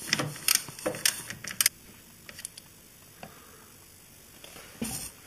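Metal wrench and socket clinking and clicking on a motorcycle's oil drain plug as it is tightened hard to crush the new sealing washer: a quick run of sharp metallic clicks in the first couple of seconds, then one more short clatter near the end.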